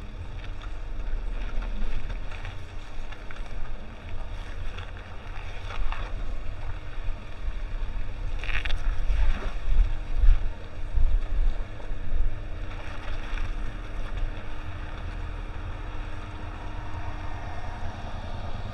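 Wind buffeting a side-mounted camera microphone over the low rumble of a 2006 Nissan Pathfinder crawling along a dirt trail, its tyres crunching over gravel and rock now and then.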